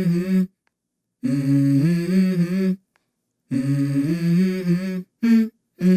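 Background music: a wordless hummed vocal line. It comes in short held phrases broken by abrupt stops into total silence, about four times.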